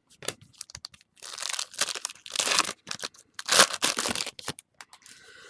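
A trading-card pack wrapper being torn open and crinkled: a few light clicks, then a run of rustling, tearing noises, the loudest about three and a half seconds in.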